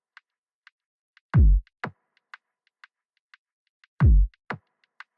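Electronic 'future kick' drum sample: a deep kick with a quickly falling pitch hits twice, about two and a half seconds apart, each followed half a second later by a lighter, shorter thump. Faint short ticks fall about twice a second between them.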